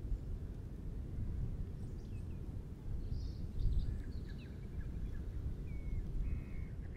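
Quiet natural ambience: faint bird chirps and short whistled calls scattered through the middle and latter part, over a steady low rumble.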